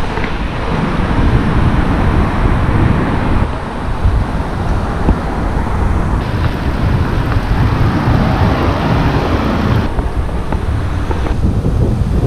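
Wind rushing over the microphone of a moving bicycle, mixed with the noise of car traffic passing close alongside. The noise changes abruptly several times.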